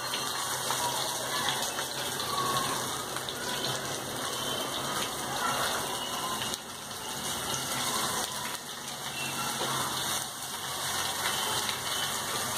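Mackerel coated in semolina and rice flour sizzling steadily in hot oil in a frying pan over a high flame.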